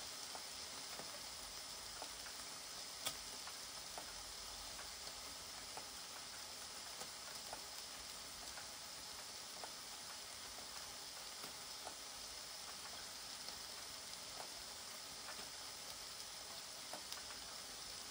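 Lamb chops sizzling in a Tefal Optigrill Elite contact grill with the lid closed, their fat rendering out: a faint, steady hiss with scattered small crackles and one sharper click about three seconds in.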